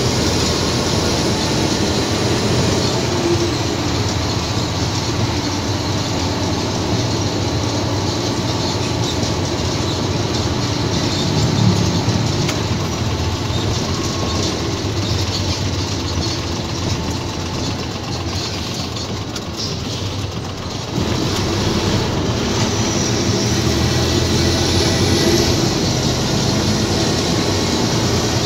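Isuzu tractor truck heard from inside its cab while driving slowly: steady engine running with road noise and cab rattle. It eases off a little, then grows suddenly louder about 21 seconds in.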